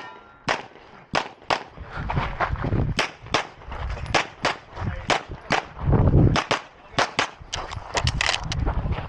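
A rapid string of pistol shots fired in quick pairs and short runs with brief pauses between, as on a practical-shooting stage.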